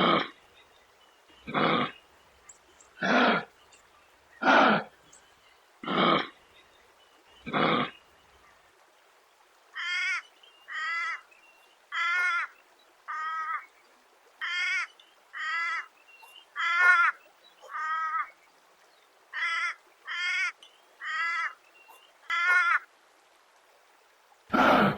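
Kangaroo calls: six harsh, rasping calls about one and a half seconds apart, then after a short gap about a dozen shorter, higher calls with a wavering pitch, roughly one a second, and one more harsh call at the end.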